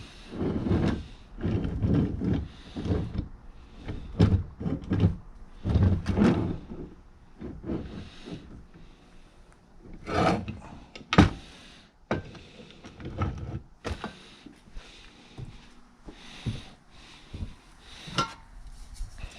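Metal parts of a Craftsman bench vise being handled and fitted back onto their mount: a run of dull clunks and scrapes, a louder knock with a sharp click about eleven seconds in, then lighter scattered knocks.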